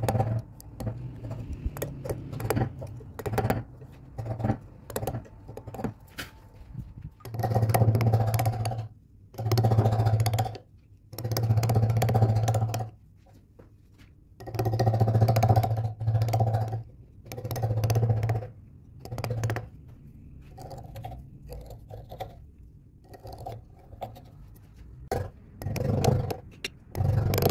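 Hand carving gouge cutting into a turned wooden ball: a run of scraping strokes, each about one to two seconds long, with short clicks and taps in between as chips break away.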